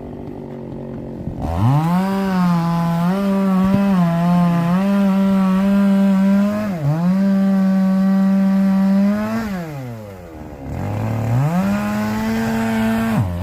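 Chainsaw revved up to full throttle about a second and a half in and held there, its pitch dipping briefly now and then as it takes load. It drops back to idle near ten seconds, then revs up once more and drops again at the end.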